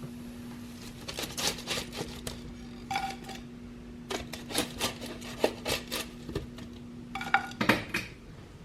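Dishes and cutlery clinking and clattering in a run of light knocks, a few with short ringing clinks, over a steady low hum that stops near the end.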